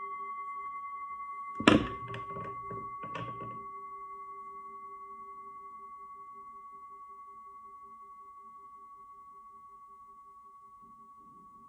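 Hammered metal singing bowl ringing out after a strike, its low tone pulsing while the ring slowly fades. About a second and a half in, a sharp knock and a brief clatter for about two seconds.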